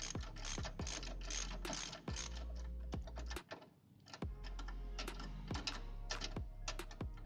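Socket ratchet wrench on a long extension clicking steadily, about three clicks a second, as it undoes an engine mount bolt, with a short pause about three and a half seconds in.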